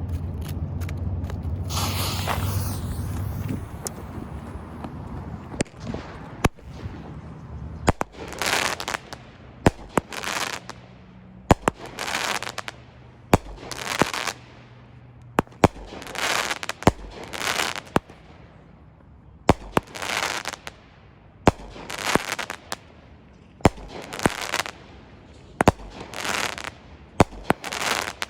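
Consumer firework cake firing shot after shot, about one every two seconds. Each shot is a sharp launch pop followed by a short hissing, crackling burst overhead. Over the first few seconds, before the shots start, a low steady hum is heard.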